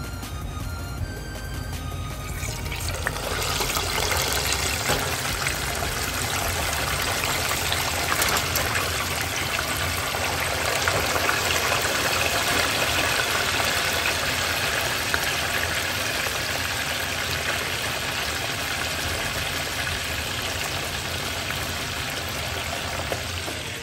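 Pork belly pieces deep-frying in a pot of hot oil: the oil breaks into loud, dense sizzling and crackling about three seconds in and keeps up steadily, easing off just before the end.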